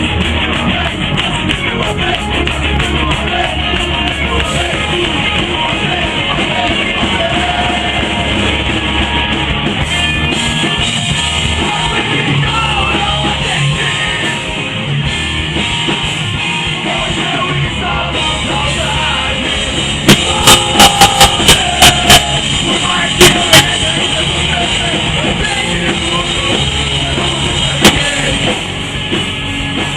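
Rock band playing live: distorted guitars, bass and drum kit in a loud, dense heavy-rock passage. About two-thirds of the way through comes a quick run of sharp, very loud hits.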